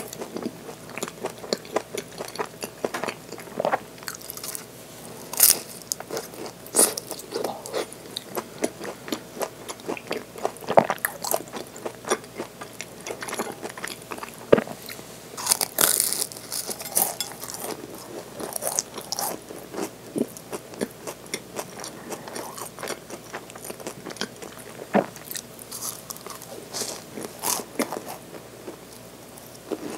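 Close-miked biting and chewing of a mandarin orange danish, its flaky pastry crackling and crunching in irregular bites throughout.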